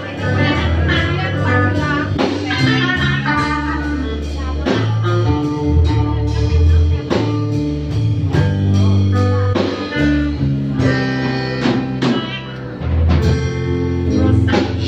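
Live blues band playing an instrumental passage, with guitar out front over a walking bass line and drum kit.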